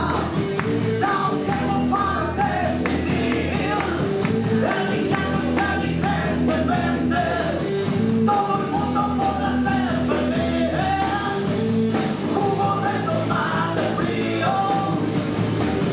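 A blues-rock band playing a song with a sung lead vocal over bass and drums.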